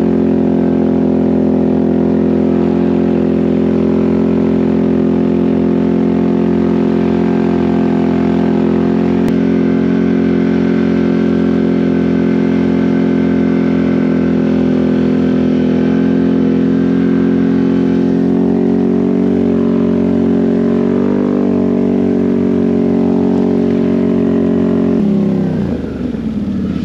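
2022 Can-Am Outlander Max XT 850 ATV on Apache 360 LT tracks, its V-twin engine running at a steady cruising speed with a constant drone. Near the end it slows and the engine pitch drops.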